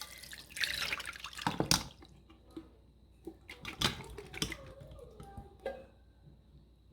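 Pineapple juice pouring from a can into a dish for about a second and a half, followed by a few sharp knocks and clinks as the chunks are handled.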